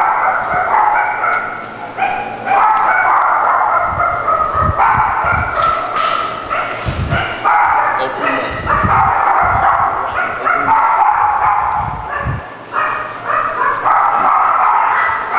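Several shelter dogs in kennels barking and yipping over one another without a break. Several low thuds come between about four and twelve seconds in, and a single sharp knock comes about six seconds in.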